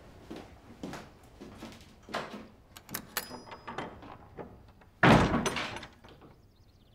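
A run of light knocks and clatter, then a door shut hard about five seconds in, the loudest sound here, ringing on briefly.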